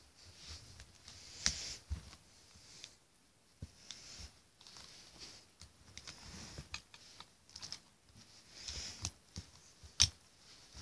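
Plastic fashion dolls being handled and moved on carpet: soft rustling with scattered light clicks and taps, the sharpest near the end.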